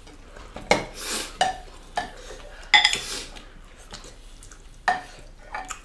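Forks and spoons clinking and scraping against ceramic plates and bowls and a glass serving bowl while food is served and eaten: about six sharp clinks spread through, the one near three seconds ringing briefly.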